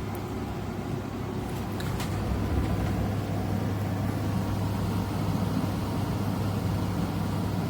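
Steady low hum over an even rushing noise, with two or three light clicks in the first two seconds.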